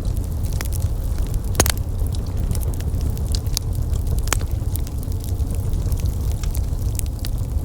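Wood fire burning with a steady low rumble of flames and scattered sharp crackles and pops, two louder pops about a second and a half in and past four seconds in.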